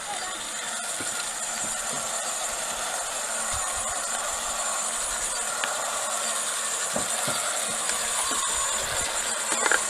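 Ryobi Expand-It battery-powered cultivator running steadily, its tines churning garden soil, with a faint high motor whine.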